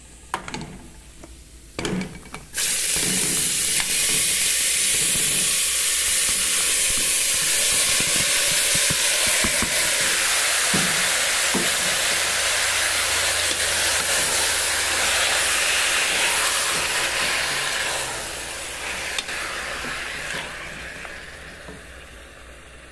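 Cubed, seasoned carne de sol (salted sun-dried beef) frying in hot oil and garlic in a pressure cooker pot. A few knocks come first as the meat goes in. About two and a half seconds in a loud, steady sizzle starts, and it eases off over the last few seconds as the meat browns.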